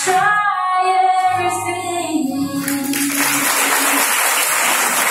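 The last held, sung notes of a song for a children's dance, stepping down in pitch, then applause from the audience, starting about three seconds in and continuing.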